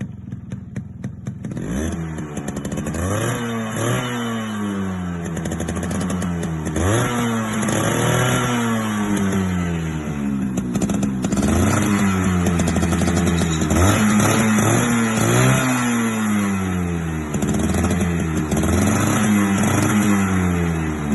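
Yamaha RX 100's two-stroke single-cylinder engine being revved again and again, its pitch sweeping up and falling back with each blip of the throttle over a steady idle. The first two seconds are quieter, with rapid ticking before the revving starts.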